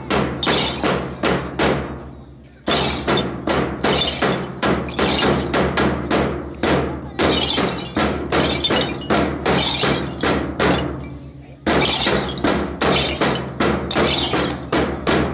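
Rhythmic metallic crashes, about two a second, from a large group doing a drill in unison with hand-held metal noisemakers, over steady backing music. The beat breaks off briefly about two seconds in and again about eleven seconds in.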